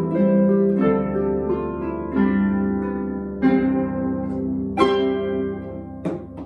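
Two Celtic harps playing together, plucked notes ringing over held bass notes, with a strong struck chord about five seconds in. Near the end, a few sharp percussive strikes begin.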